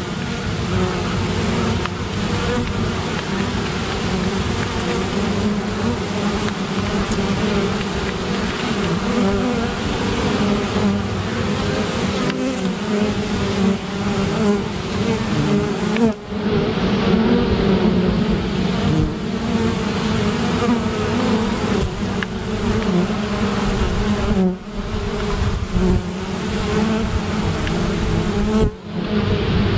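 Honey bees buzzing in flight close around a hive entrance: a dense, steady hum whose pitch wavers as single bees pass near the microphone. The loudness dips briefly three times, about halfway through, past three quarters of the way, and near the end.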